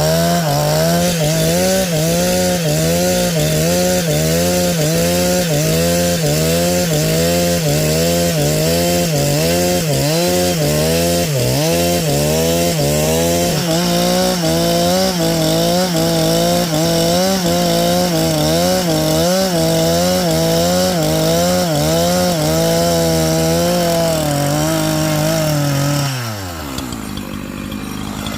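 Two-stroke chainsaw running at high revs while cutting through a log lengthwise, its engine note wavering in a steady rhythm as the bar works through the wood. Near the end the throttle is released and the engine falls quickly to a low idle.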